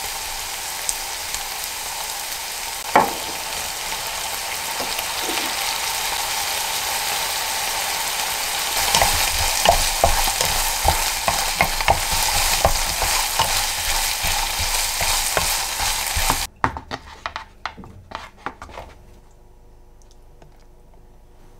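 Ground pork with onion and peppers sizzling in a nonstick frying pan, with one sharp knock about three seconds in. Stirring with a wooden spatula adds busy clacks and scrapes from a little before halfway. The sizzle cuts off suddenly, a few taps and scrapes of a ladle scooping the meat onto rice follow, and then there is quiet room tone.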